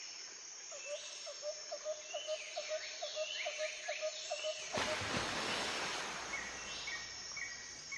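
Birds calling: a short note repeated about four times a second, with a few falling higher chirps. About five seconds in, a steady rushing noise takes over.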